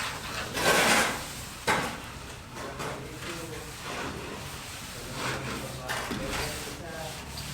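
Scraping and knocking of hand work on building materials: a loud scrape about a second in, a sharp knock soon after, then lighter knocks and scrapes.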